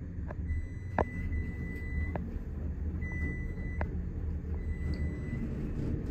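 Modernized traction elevator car travelling upward, heard from inside the cab: a steady low rumble of the ride, with a few sharp clicks, the loudest about a second in, and a faint high steady tone that comes and goes three times.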